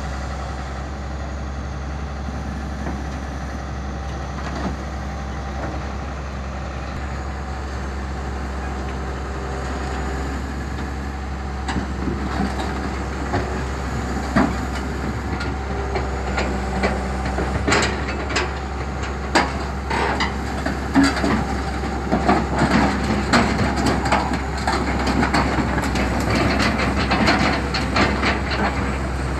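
Crawler excavator's diesel engine running steadily as the machine crawls down a lowboy trailer's ramps. From about twelve seconds in, its steel tracks clank and rattle over the trailer deck and ramp, the clanks coming thicker and louder toward the end.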